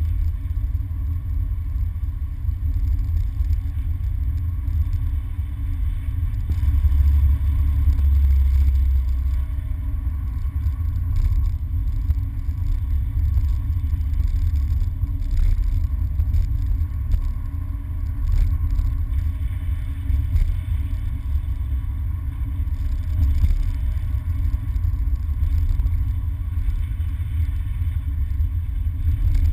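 Car engine and tyre noise heard from inside the cabin while driving on a wet road: a steady low rumble. The rumble swells for a couple of seconds about seven seconds in.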